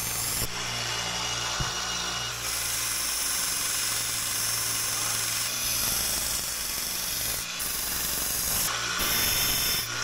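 Small benchtop belt sander running, its motor humming steadily, while a steel arrowhead is pressed against the sanding belt to grind its edges: a harsh grinding hiss that changes in strength several times as the piece is lifted and repositioned.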